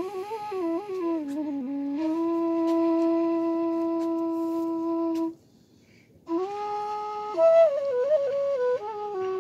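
Solo bamboo bansuri (transverse bamboo flute) playing a melody. It winds through a few notes, holds one long note, stops for a breath of about a second past the middle, then starts a new phrase that steps through several notes.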